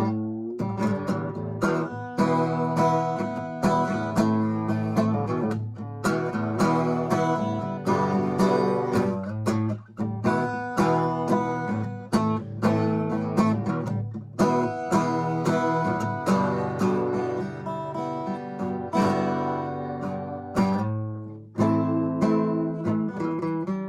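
Acoustic guitar music, chords strummed and plucked in a steady rhythm.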